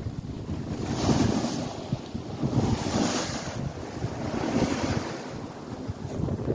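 Bow wave and spray rushing along the hull of a Tartan 34 C sailboat beating into the wind as it cuts through the waves, washing in surges every second or two. Wind buffets the microphone underneath.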